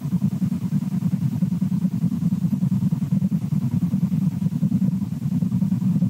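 Steady low 'waffling' noise, a dense fluttering rumble with no clear pitch and no break, picked up by the nest camera's microphone.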